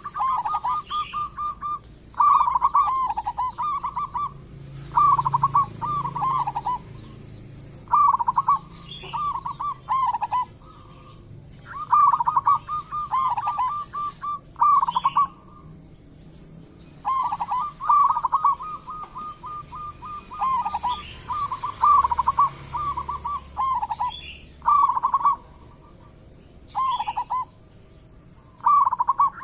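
Zebra doves (perkutut) singing: repeated phrases of quick, staccato coos, now and then running into a longer trill, with phrases sometimes overlapping. Faint higher chirps and a few falling whistles from other small birds sound in the background.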